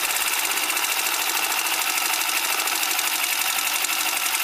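Single-cylinder four-stroke scooter engine idling with a steady, rapid beat. Its idle-mixture (air) screw is turned fully in and the idle-speed screw is set so low that the engine only just keeps running without stalling.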